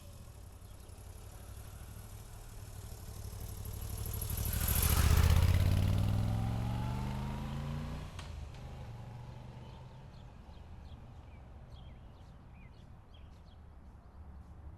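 Motorcycle V-twin idling with a steady low rumble while another vehicle passes by, swelling to its loudest about five seconds in and fading away over the next few seconds.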